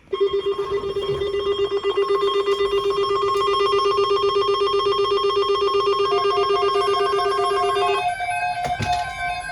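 A loud electronic ring-like tone trilling rapidly in two pitches, one low and one high, for about eight seconds. It then switches to a short melody of stepped synthesized notes.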